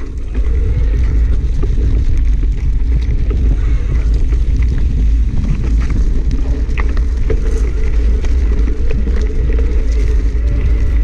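Steady low rumble of wind buffeting the microphone and a mountain bike rolling fast over a rough dirt trail, with scattered clicks and rattles from the bike.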